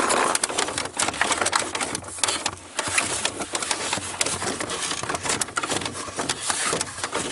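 Continuous rustling and crackling with many small sharp knocks of dry wood, as armloads of gathered driftwood firewood are carried and handled.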